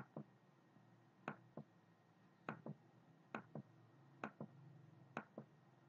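Computer mouse button clicking about once a second, each click a quick pair of ticks (press and release), as polygon vertices are placed one after another.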